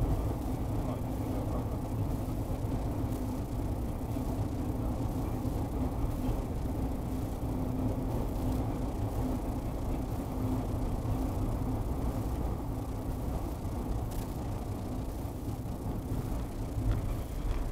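Steady road and engine rumble inside a moving car with a constant low hum, picked up by a G1W dashcam's built-in microphone. A few faint crackles and a thin hiss ride on top: the recording artefacts this dashcam's audio is known for.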